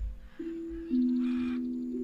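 Tibetan singing bowls struck one after another, a higher bowl then a lower one about half a second later, each ringing on with a pure steady tone that slowly fades. A harsh bird call from the jungle soundscape sounds briefly over them, and there is a soft low thud at the start.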